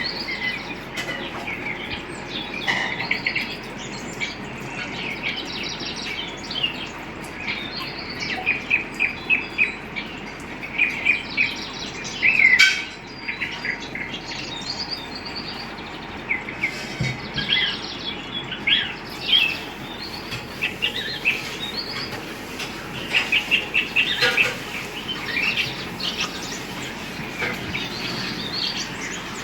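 Birds chirping and calling, with many quick runs of short repeated notes over steady background noise.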